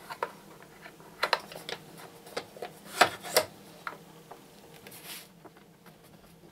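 Irregular light clicks and taps from plastic and metal parts of a Festool Kapex miter saw's blade guard and housing being handled and fitted by hand, with a short scraping hiss about five seconds in.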